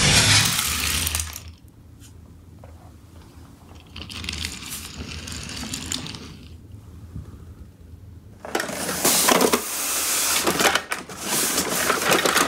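Small die-cast toy vehicles rolling down a plywood ramp, their wheels rumbling until they run out onto the floor about a second and a half in. A toy garbage truck is then pushed along the floor by hand with a soft rolling hiss. From about two-thirds of the way through comes a louder, busy clatter of many clicks.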